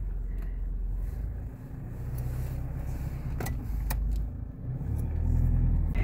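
A car driving, heard from inside the cabin: steady low engine and road rumble, with two short clicks a little past halfway.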